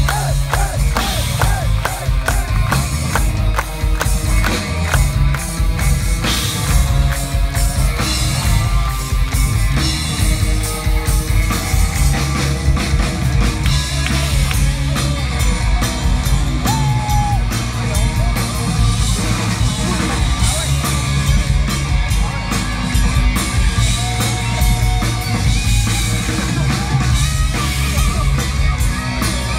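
Heavy metal band playing live at full volume: distorted electric guitars, bass and drums, with no break in the music.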